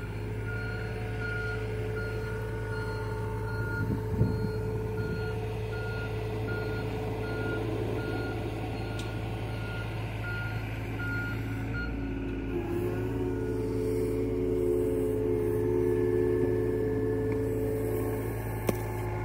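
John Deere mini excavator's diesel engine running as the machine tracks backward, its travel alarm beeping about once a second for the first thirteen seconds or so. Then the beeping stops and the engine and hydraulics take on a higher whine as the boom and bucket move, with a single knock about four seconds in.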